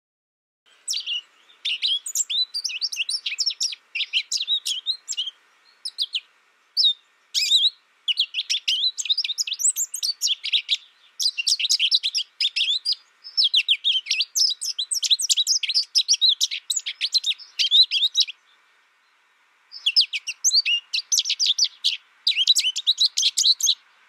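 Captive goldfinch singing, a song learned from a tutor recording rather than from other birds: long phrases of fast, twittering chirps and trills, broken by short pauses and one longer break about three-quarters of the way through.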